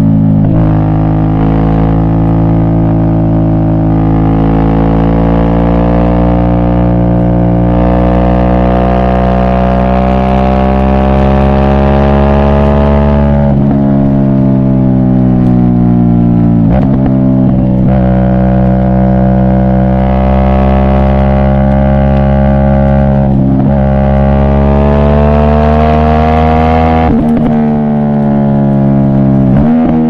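Aprilia Shiver V-twin motorcycle engine running under load while riding. Its note climbs slowly and falls back sharply about four times, as at gear changes.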